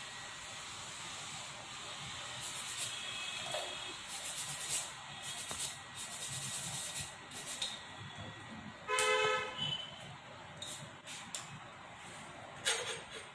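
Steady background hiss with scattered light clicks, and a single short horn toot about nine seconds in.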